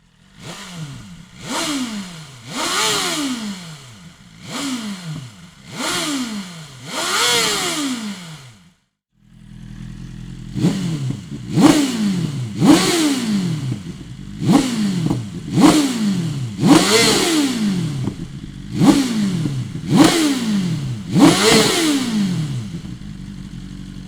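2022 BMW S1000RR inline-four engine through a Dominator full exhaust system, revved in short throttle blips from idle. The pitch rises sharply and falls back each time, about six blips, then a brief break about nine seconds in, then about nine more.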